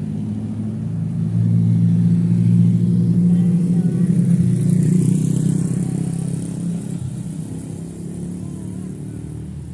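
A heavy road vehicle's engine running as it passes close by: the sound builds to its loudest a couple of seconds in, then fades away toward the end. No horn is sounded.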